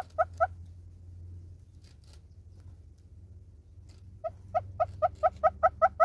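Southern red-billed hornbill calling, a rapid series of clucks at about five a second. It breaks off about half a second in and starts again after four seconds, growing louder.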